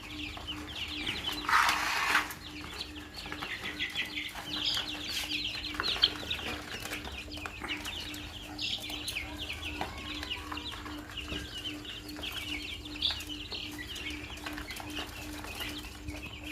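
A brood of chicks cheeping, with many short, high peeps overlapping without a break. A louder, harsher call comes about two seconds in, and a steady low hum runs underneath.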